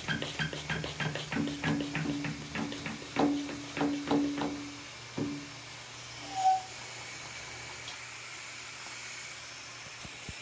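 Quick taps and clicks over a low hum, then a steady hiss of fine water mist from a pump-pressurised spray bottle. One short whistle-like chirp from the pet bird about six and a half seconds in.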